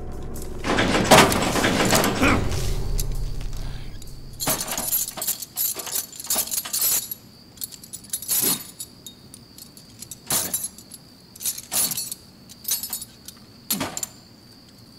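A loud crash in the first seconds, then a metal chain rattling and clinking in a dozen short, separate jerks, as if someone is straining against it.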